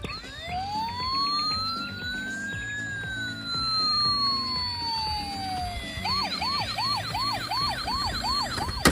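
A toy emergency vehicle's electronic siren. It makes one slow wail that rises and then falls, switches to a quicker yelp about six seconds in, and cuts off at the end.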